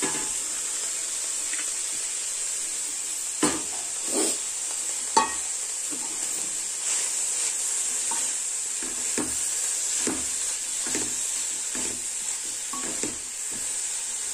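Amaranth greens and onions sizzling in a large pan while a spoon stirs them, scraping and knocking against the pan now and then.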